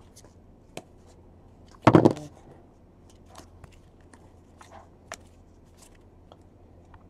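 Trading cards being flipped and slid off a stack in the hands, a string of faint clicks and soft rustles, with one louder short burst about two seconds in.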